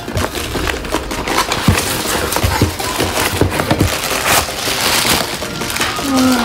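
Cardboard box being opened by hand: flaps and the inner cardboard insert rustling and scraping, with several light knocks as the box is handled.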